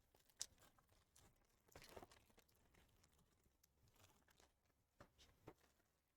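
Near silence, broken by faint handling noises from trading cards: a sharp click about half a second in, a short rustle around two seconds, and two more light clicks near the end.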